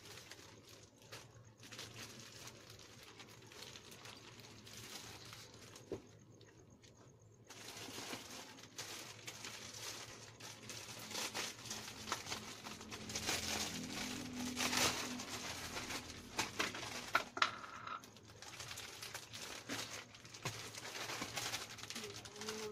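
Plastic snack packets crinkling and rustling as they are handled and hung up, with sharp crackles; quieter at first and busier after about eight seconds.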